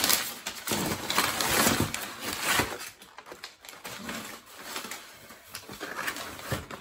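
Crumpled brown packing paper rustling and crinkling as it is pulled out of a cardboard box, loudest for the first three seconds, then quieter handling.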